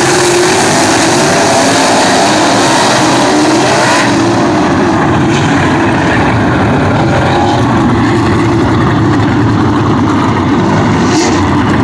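A field of winged sprint cars racing together, their engines a loud, continuous din that swells and shifts in pitch as the cars pass and power through the turns.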